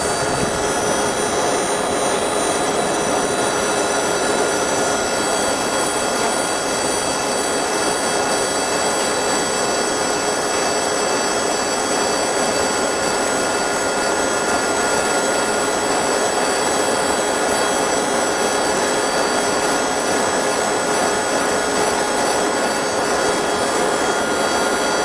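20 W fiber laser engraver marking a logo onto an aluminium drink can: a steady hissing buzz with several high, fixed whining tones running through it, without a break.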